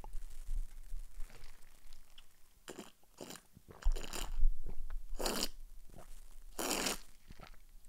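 A man drinking from a glass close to a microphone: about five short, noisy mouth sounds between about three and seven seconds in.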